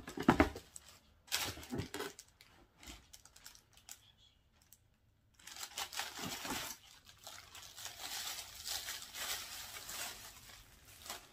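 Plastic wrapping crinkling and rustling as a shoe is unwrapped and lifted out of a cardboard shoebox. A few sharp knocks near the start as the box is handled; a short lull midway, then steady crinkling to the end.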